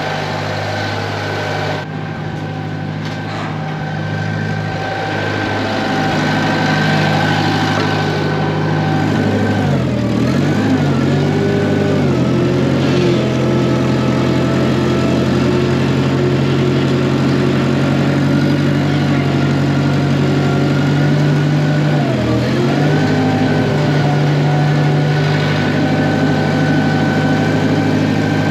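Wisconsin V4 engine of a Massey Ferguson MF711 skid steer running at a steady idle while warming up from a cold start. Its speed dips briefly and picks back up twice, about ten seconds in and again near the end.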